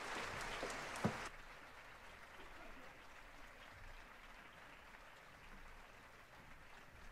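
Audience applause after the aria, faint and thinning, with one sharp click about a second in; the clapping cuts off abruptly just after, leaving only a faint low background.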